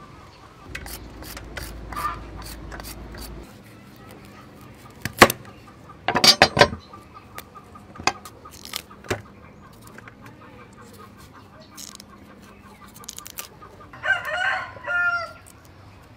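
Chickens clucking, with a longer pitched call near the end. Scattered sharp clicks and knocks are heard too, the loudest cluster about six seconds in.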